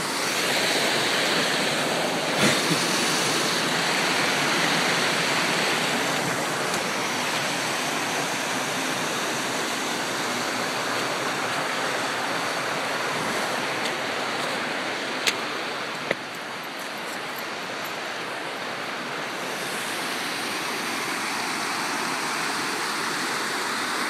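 Small waterfall and rocky stream rushing in a steady noise, with two sharp clicks about two-thirds of the way through.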